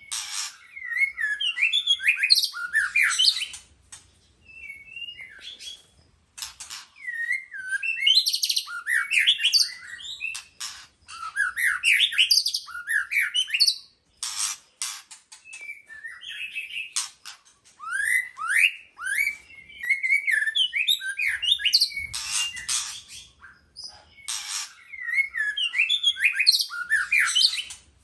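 White-rumped shama singing: bouts of quick, varied whistled phrases that slide up and down, mixed with short sharp notes, broken by brief pauses.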